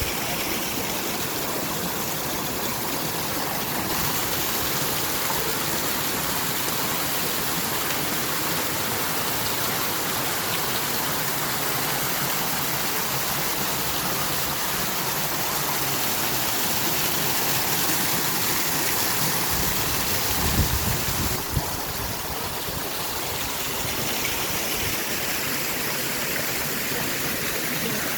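Fountain water splashing steadily in a dense, even rush. About two-thirds of the way through come a brief low rumble and a couple of soft thumps.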